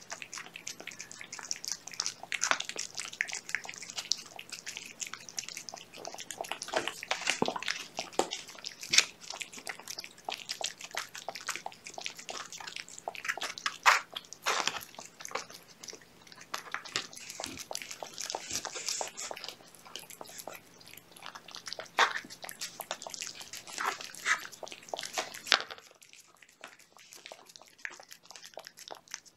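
Domestic kittens and their mother eating wet cat food from a plate: dense, irregular wet chewing and lapping clicks, which thin out sharply near the end.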